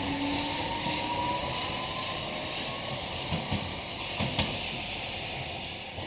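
Randen Mobo 2001-series tram pulling away, its electric motors giving a rising whine as it accelerates. A few wheel clacks over the rail joints come about halfway through.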